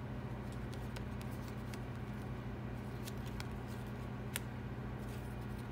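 Baseball trading cards being thumbed through and slid against one another by hand, giving faint scattered clicks and rustles over a steady low hum.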